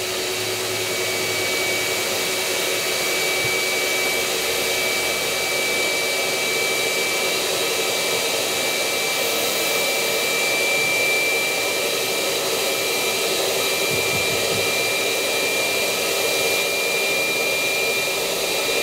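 Electric air blower running steadily with a high whine, forcing air through a hose into an inflatable culvert plug that is nearly at full pressure.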